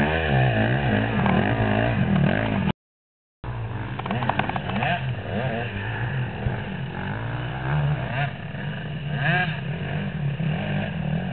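Motocross bike engines revving up and down as they ride through sand, one bike passing close by at the start and others further off afterwards. The sound cuts out completely for about half a second near three seconds in.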